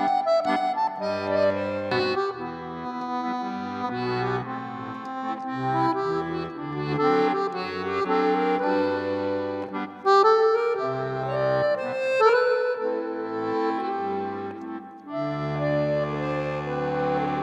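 Accordion music: a melody of sustained reed notes over held bass chords.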